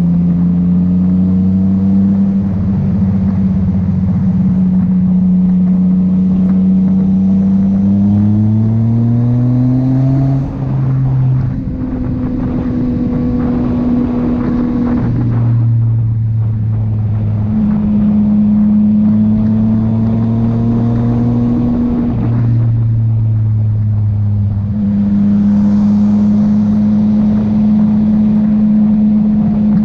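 Yamaha MT-09 three-cylinder motorcycle engine under way on a ride. The engine note climbs in pitch around eight seconds in, drops with a brief lull near ten seconds as the rider shifts gear, then holds and changes pitch several more times with the throttle, over wind and road noise.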